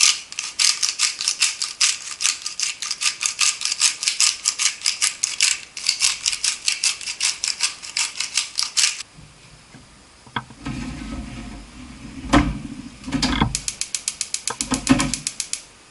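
A salt grinder of Himalayan pink salt being twisted: a fast, even run of dry ratcheting clicks for about nine seconds. Then a gas stove is lit: a quick run of igniter clicks and the low rush of the burner catching, with a few knocks from the stove's knob.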